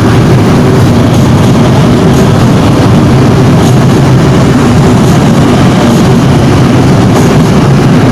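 A fourth-generation LRT-1 light rail train rolling past on the track, a loud steady rumble with a faint hum from its running gear.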